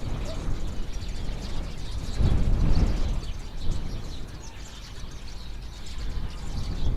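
Outdoor village ambience: a steady uneven low rumble that swells briefly about two seconds in, with small birds chirping faintly throughout.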